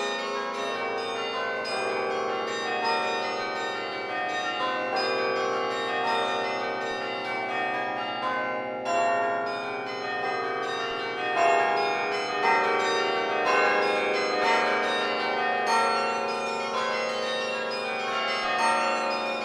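The Laura Spelman Rockefeller Memorial Carillon being played from its baton keyboard: many bronze bells struck in quick, overlapping notes, each ringing on under the next. The high notes break off briefly about nine seconds in, then the music resumes.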